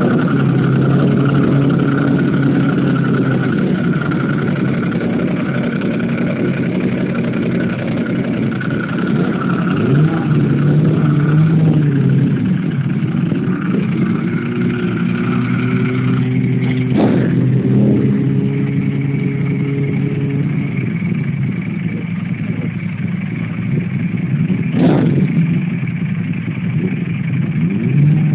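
A Ducati 998S V-twin and a Suzuki GSX250SS idling together, with a few short revs about ten, seventeen and twenty-five seconds in.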